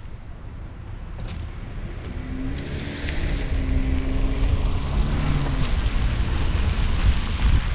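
Car driving on a rain-soaked street: wind buffeting an exposed roof-mounted microphone, and tyres hissing on wet pavement, the hiss growing louder partway through. A low engine hum sounds for a few seconds in the middle, and there are a few faint clicks.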